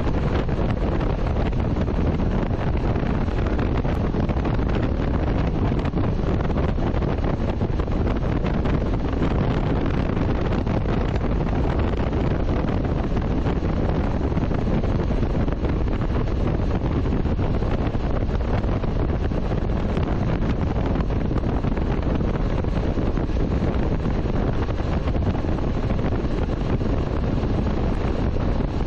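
Steady wind noise buffeting the microphone on a 2018 Honda CTX700N motorcycle under way, with a low rumble underneath.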